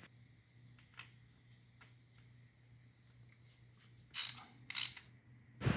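Hand tools working on motorcycle brake caliper parts: faint scattered clicks, then two short rasping bursts about half a second apart. A sudden louder rush of noise starts right at the end.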